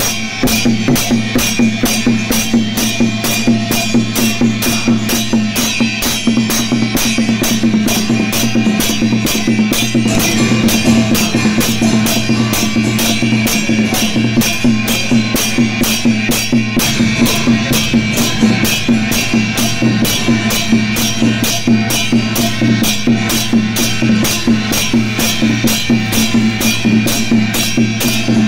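Background music with a steady drum-kit beat and no singing.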